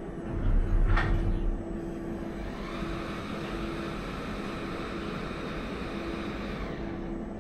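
Battery swap station machinery working under the car, heard from inside the cabin as it brings a new battery on its conveyor to fit it. A low rumble with a single knock about a second in gives way to a steady electric motor whine from about two and a half seconds on.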